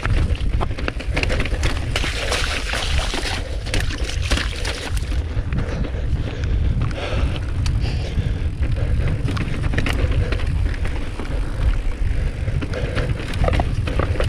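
Mountain bike ridden downhill over rough rock slabs: a continuous rumble of wind buffeting the action-camera microphone, with frequent clicks and rattles from the tyres and bike over the rock.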